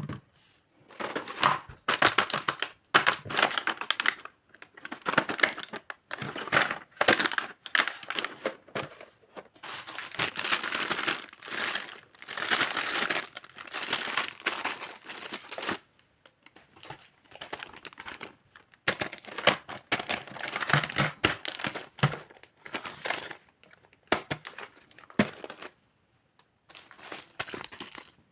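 Plastic packaging crinkling and tearing in irregular handling bursts with short pauses, as a miniature toy kitchen set is unboxed by hand.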